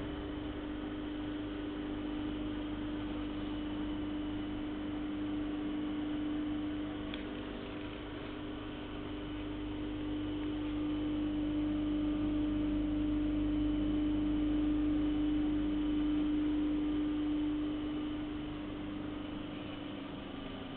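Shrink-wrapping machine's heat tunnel running: a steady electric motor hum with one strong droning tone over a low rumble. It grows a little louder about halfway through and eases off near the end.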